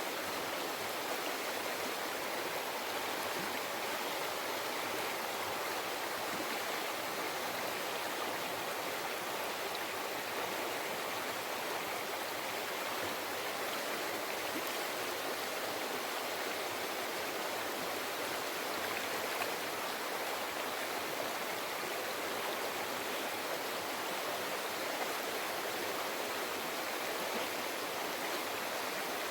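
Mountain river flowing over rocks: a steady, even rush of water without a break.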